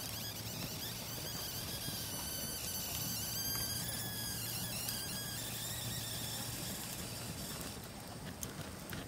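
A high, wavering insect drone over a steady low hum that stops about eight seconds in, giving way to the sharp crackle and pops of a wood campfire.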